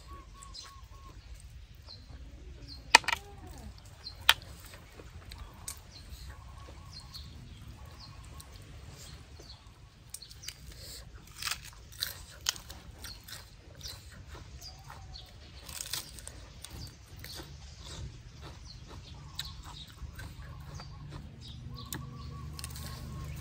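Close-up eating sounds: blood cockle shells pried open with the fingers, giving a few sharp clicks about three and four seconds in, then chewing and crunching of fresh lettuce. Faint bird chirps are heard in the background.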